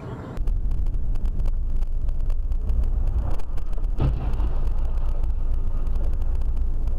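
Dashcam recording from inside a moving car: steady low road and engine rumble with some wind buffeting, and a brief knock about four seconds in.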